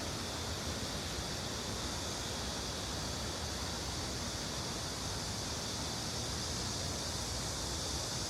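Steady rushing of flowing stream water, with a low rumble underneath.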